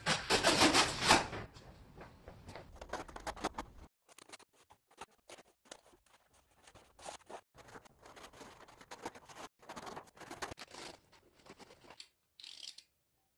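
Corrugated cardboard of flat-pack furniture boxes being torn open by hand: a quick run of ripping and scraping strokes, loudest in the first second or so, then several softer bouts of tearing that stop and start abruptly.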